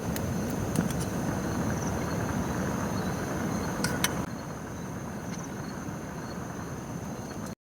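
Night insects calling: a steady high trill with short chirps repeating below it, over a low steady rushing noise, with a few faint clicks.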